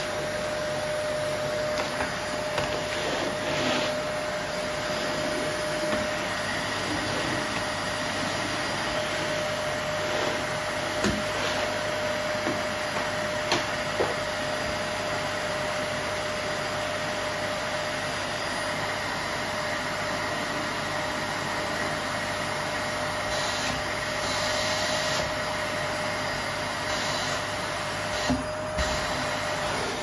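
Bagless canister vacuum cleaner running steadily, its floor brush worked over a wooden floor, with a steady whine above the rush of air and a few light clicks.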